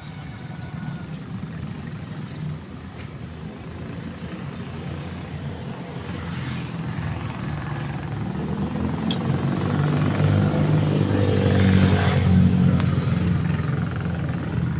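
A motor vehicle engine running with a low rumble that grows steadily louder over the second half, with one sharp tick about nine seconds in.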